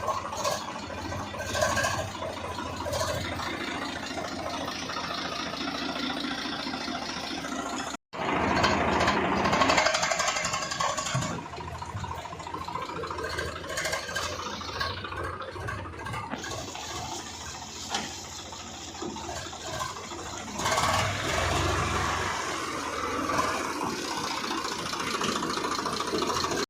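Swaraj 855 tractor's three-cylinder diesel engine running as the tractor is driven and turned around. The sound cuts out for an instant about eight seconds in, and its tone shifts a few times.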